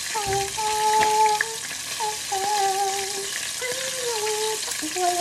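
Battered vegan chicken pieces deep-frying in a pan of hot oil, a steady sizzle, with a wavering tune over it.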